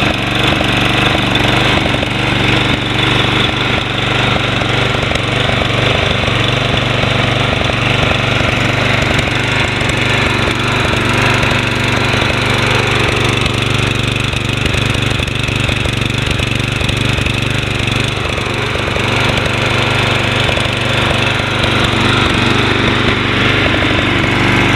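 Toro Personal Pace mower's Briggs & Stratton 190cc single-cylinder engine running steadily just after starting, with its Spin Stop blade not yet engaged.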